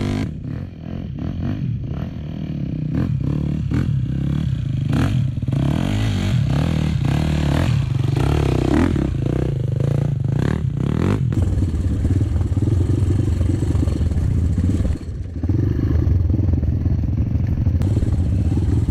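Trail motorcycle engine running as it is ridden off-road, with many knocks and rattles through the first half. The engine sound drops briefly about three-quarters of the way through, then picks up again.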